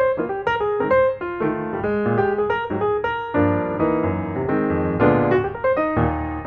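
Background piano music, a run of notes with chords beneath.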